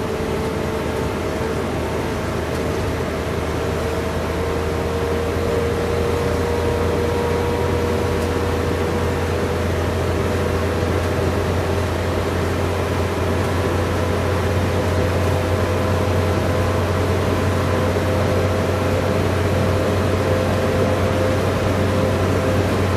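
Inside a moving bus: a steady engine and road drone, with a whine that climbs slowly in pitch as the bus gathers speed.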